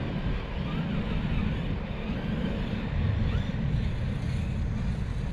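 Wind buffeting an outdoor microphone as a steady, uneven low rumble, with faint short rising and falling whines from the electric motors of small RC scale crawlers driving some distance off.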